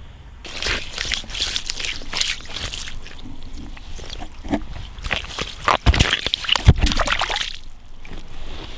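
Water sloshing and splashing in an ice-fishing hole as a caught catfish is handled and let back into the water, with two sharp, louder splashes or knocks about six and seven seconds in.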